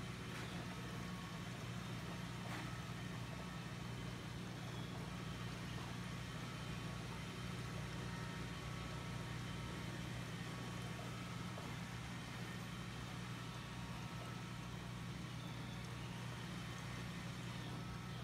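Aquarium air pump humming steadily, with faint fizzing from the stream of air bubbles in the tank.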